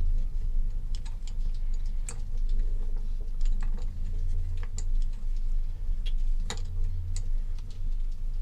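Irregular small clicks and taps of a sail drive's plastic-capped oil dipstick being worked into its tube by hand, over a steady low hum.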